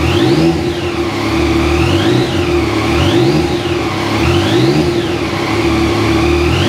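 2020 Yamaha MT-09's 847 cc inline three-cylinder engine running at idle and revved in short throttle blips, the pitch rising and falling back about every second and a half.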